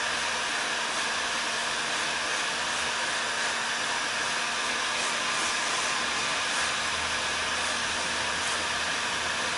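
Electric heat gun blowing steadily: an even rush of hot air over a faint low motor hum, heating thin walnut strips so they soften and can be bent.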